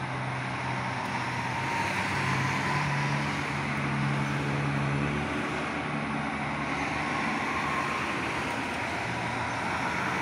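Steady traffic noise from a busy multi-lane toll road: tyre rush and engine hum of passing cars, trucks and buses. A low engine drone is strongest in the first half.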